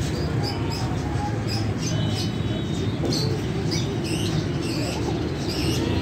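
Many small caged birds chirping, short high calls scattered irregularly over a steady low background rumble.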